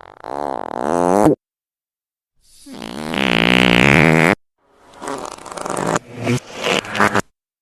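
Fart sound effects, three in a row with dead silence between them. First comes a short, wavering one. Then a longer, louder one swells to its peak. Last is a broken, sputtering run of several short bursts, and each sound cuts off abruptly.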